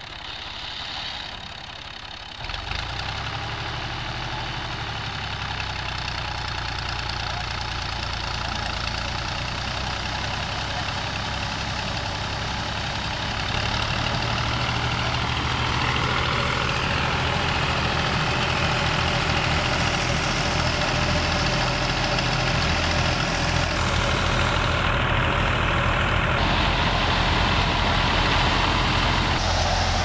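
Fiat 480 tractor's three-cylinder diesel engine running steadily under load while powering a wheat thresher, with the threshing machine's continuous churning noise over it. The sound steps up a couple of seconds in and grows louder again about halfway through.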